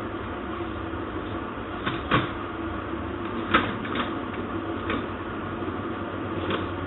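A handful of sharp mechanical clicks and knocks from a typewriter's mechanism being handled, at irregular intervals, over a steady background hum.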